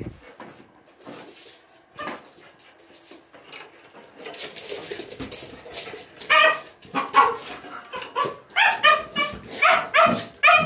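Small dog giving a quick run of about a dozen short, high barks and yips in the last few seconds, with a breathy hiss close to the microphone shortly before.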